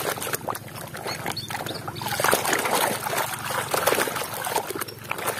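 Muddy water sloshing and splashing in a plastic basin as a toy is swished and scrubbed about in it by hand, in irregular splashes.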